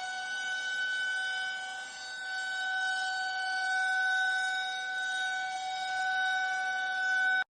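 Siren tone of an emergency alert broadcast: one high, steady note with a rich, buzzy edge, held without a break and swelling slightly in loudness. It cuts off abruptly near the end.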